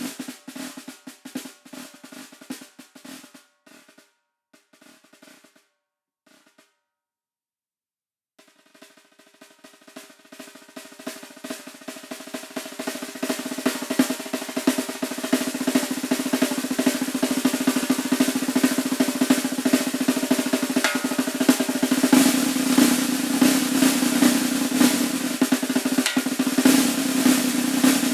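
Solo snare drum: a run of strokes dies away into a few scattered soft taps and a brief silence. Then a roll starts almost inaudibly and swells into a loud, sustained roll.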